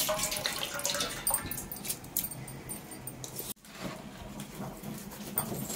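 Water trickling and splashing into a steel bucket as soaked rice is drained, the water running off through a cupped hand, with a few light clicks. It stops abruptly a little over halfway, leaving a quieter background with faint clicks.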